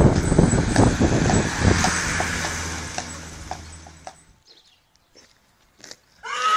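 Horse-drawn carriage rolling on a paved road behind a Comtois draught mare: wheel rumble with the clip-clop of hooves, fading out about four seconds in. After a near-silent pause, a horse whinnies near the end, one long wavering call.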